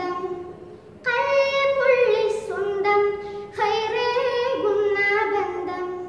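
A boy singing a Malayalam madh song, an Islamic devotional song, solo in long held phrases, pausing briefly for breath just under a second in before the next line.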